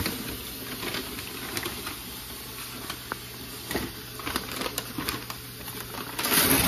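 Brown paper grocery bag crinkling and rustling as hands unroll and open it, with many small crackles throughout and a louder rustle about six seconds in.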